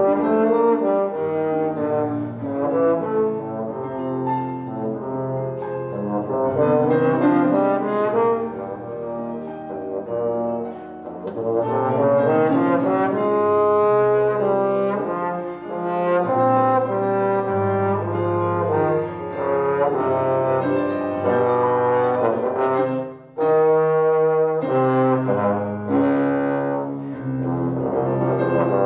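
Bass trombone playing a solo concert piece, a continuous line of held and moving notes, with a brief gap about three-quarters of the way through.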